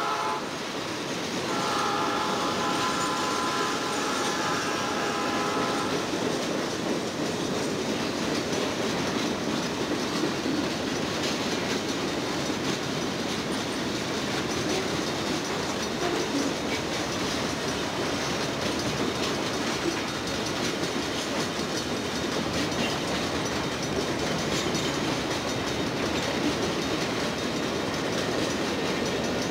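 Diesel freight locomotive's air horn blowing at a road crossing: the tail of one blast right at the start, then another held for about four seconds, ending about six seconds in. After that a long freight train of boxcars rolls past with a steady rumble and wheel clatter.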